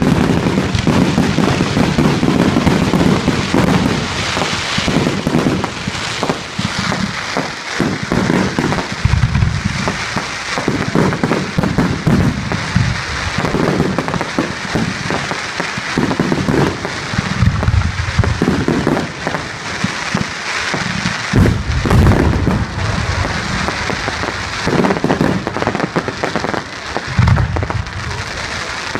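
Firework display: a dense, continuous crackling with many sharp bangs, broken by repeated deep booms of shells bursting.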